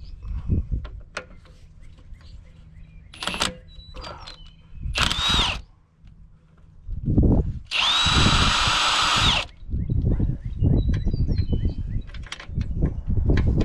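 Handheld power drill motor spinning up, running steadily with a high whine and winding down: a short burst about five seconds in, then a longer run of about two seconds. Scattered metal clinks and knocks of tools being handled come in between.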